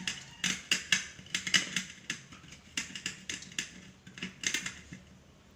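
Ulekan pestle knocking and grinding garlic, pepper and salt in a cobek mortar, with about two to three strikes a second that stop near the end.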